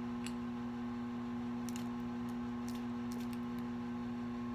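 Faint scattered clicks and taps from a plastic barbecue-sauce bottle being squeezed and shaken over a mixing bowl, several close together past the middle. Under them runs a steady low electrical hum.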